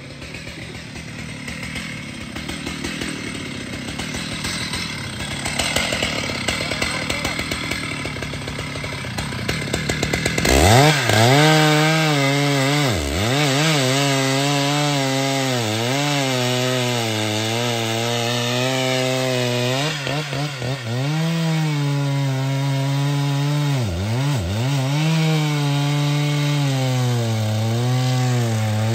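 Large two-stroke chainsaw cutting into the base of a rain tree trunk. A rough noise builds over the first ten seconds. Then the saw goes to full revs and holds a steady high note that dips in pitch several times as the chain bogs down in the wood.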